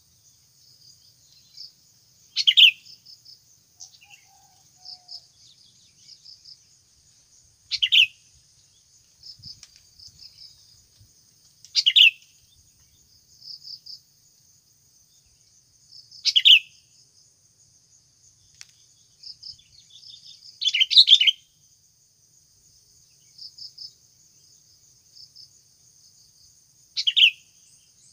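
Sooty-headed bulbul calls: short, sharp call notes repeated about every four to five seconds, with a fainter, steady high-pitched trill running underneath.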